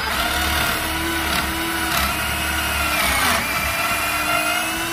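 Corded drill spinning a stepped pocket-hole bit through a Kreg pocket-hole jig into 3/4-inch plywood: a steady motor whine that sags briefly in pitch a little over three seconds in as the bit bites.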